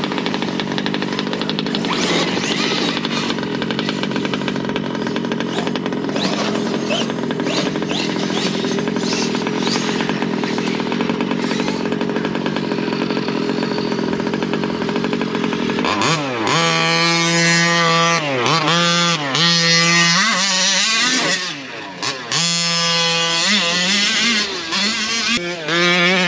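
Arrma Kraton 8S brushless 1/5-scale RC truck being driven. For about the first two-thirds it gives a rough, noisy run of motor and tyres. Then a clear electric motor whine dips and climbs in pitch several times.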